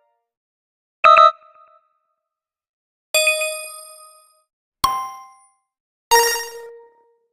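Four short stock sound effects from a video-editing app's library, played one after another with silence between: bright ding and chime hits, each ringing and fading out within about a second.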